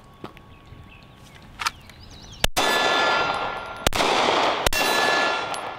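Two light clicks, then three pistol shots, the first two about a second and a half apart and the third close behind. Each shot trails off in a long, loud, ringing echo.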